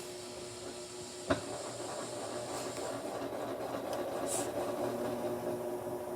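Whirlpool 22 kg washing machine in its spin cycle: a steady motor hum and whir. A sharp click comes about a second in, after which the running grows louder.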